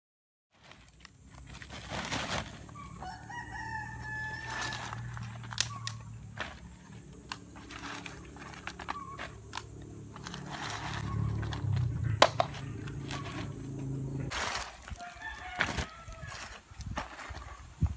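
A rooster crowing about three seconds in, and again briefly near the end. Sharp knocks of dry coconut shell halves being handled, over a low steady hum.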